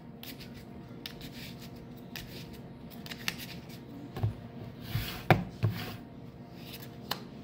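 A deck of Neapolitan playing cards being shuffled and handled by hand: soft rubbing with scattered slaps and taps of cards, the loudest a little after five seconds in.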